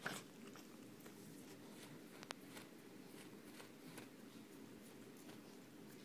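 Miniature pinscher puppy eating a frozen dog treat: faint, scattered licking and chewing clicks, with a sharper click right at the start and another a little past two seconds in.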